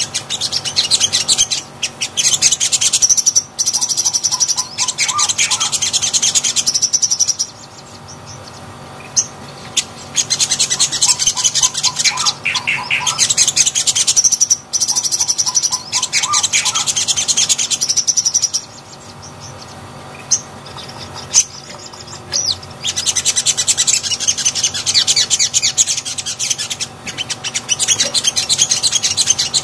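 A caged male sunbird, the kind kept as 'sogon', singing a fast, high-pitched twittering song with rapid chattering note trains. It sings in three long bouts, with two short pauses between them.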